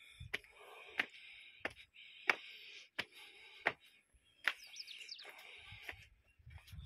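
Footsteps on concrete steps: sharp, regular steps about every two-thirds of a second over a steady high hiss, with a few brief high chirps about halfway through.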